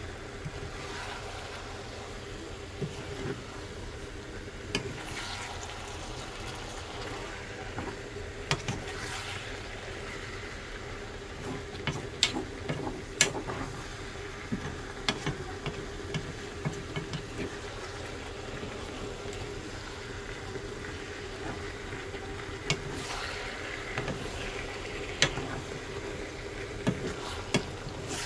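Fish cakes, onion and chilies sizzling in seasoning sauce in a ceramic-coated frying pan while a wooden spoon stirs them. Scattered knocks and scrapes of the spoon against the pan come in clusters about halfway through and near the end, over a steady hum.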